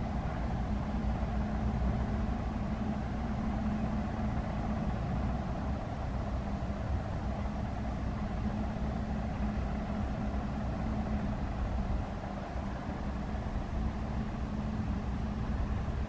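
Steady low rumble of distant motor traffic, with a constant low hum.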